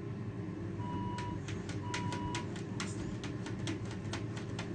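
Two long, steady electronic beeps about a second apart, like a vehicle's warning beeper, over a steady low rumble, followed by a quick run of sharp clicks or cracks.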